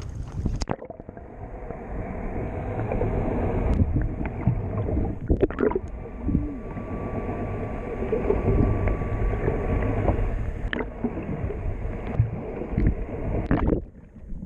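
Muffled, dull sloshing water and rumble with a few scattered knocks, the high end cut away so it sounds dampened.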